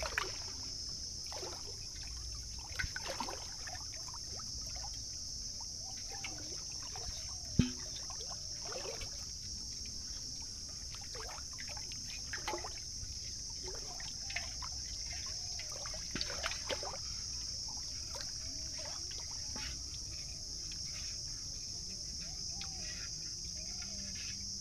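Steady high-pitched insect buzzing over the gentle sound of shallow water trickling and splashing as a rope line and scoop net are worked through it, with one sharp knock a little under eight seconds in.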